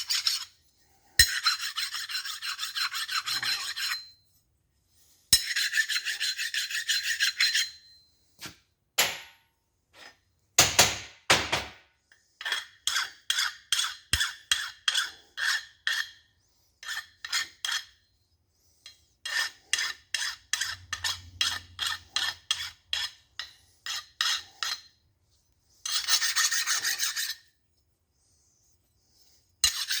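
Hand file rasping along the edges of steel connecting rods, deburring them and taking off folded-over metal. Two long runs of strokes, then a stretch of short, quick strokes about two a second, with pauses between and one more run near the end.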